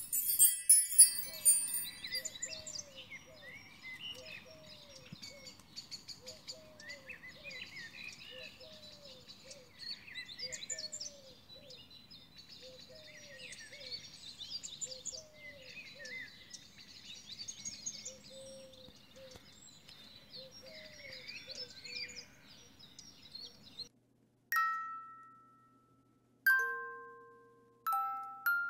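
Birds chirping and singing over a faint steady low hum, opening with a bright sparkling chime. Near the end a few single glockenspiel-like mallet notes ring out one after another, each dying away.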